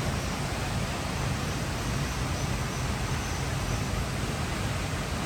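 Steady rush of flowing river water, an even hiss with a low rumble underneath.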